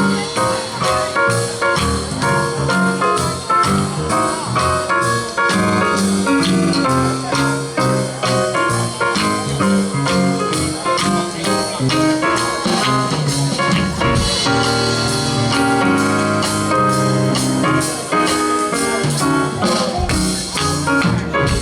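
Gospel band music without singing: instruments playing with a steady drum beat.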